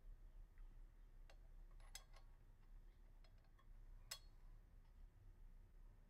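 Faint metallic clicks and clinks of a steel flange washer and arbor bolt being handled and fitted onto a concrete saw's blade arbor. A few scattered ticks, the clearest about two and four seconds in.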